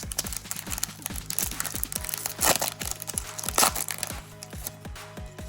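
Foil wrapper of a baseball card pack crinkling as it is torn open and crumpled, loudest in two bursts about two and a half and three and a half seconds in, over background music with a steady beat.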